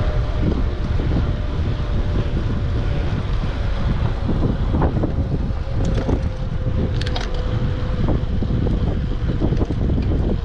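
Wind buffeting the microphone of a camera on a moving gravel bike, with steady rumble from riding and a few sharp clicks or rattles that come more often near the end. A faint steady hum underneath stops about eight seconds in.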